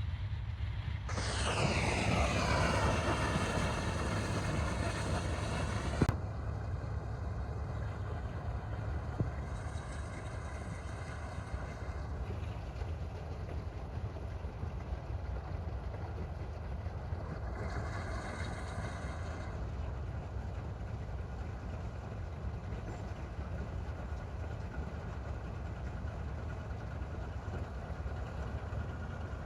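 Combine harvester's engine running steadily. A louder, higher stack of tones falls in pitch and then holds for the first few seconds, then cuts off abruptly about six seconds in. Two shorter high-pitched passages come later.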